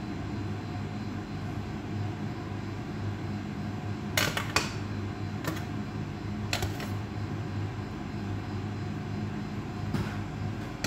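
A perforated metal skimmer scooping cooked rice, clinking several times against the metal pot and stainless steel tray a few seconds in, over a steady low hum.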